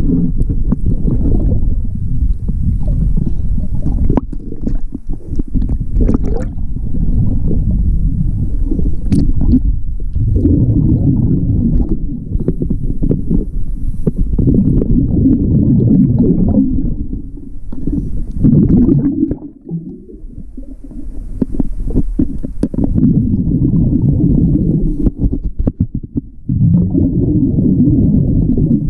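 Scuba diver breathing underwater through a regulator: the exhaled air bubbles out past the camera in long, loud, low stretches, with a few brief lulls between breaths and scattered small clicks.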